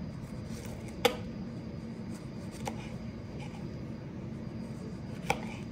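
Three sharp clicks of a kitchen knife as a tomato is sliced, the first, about a second in, the loudest, over a steady low hum.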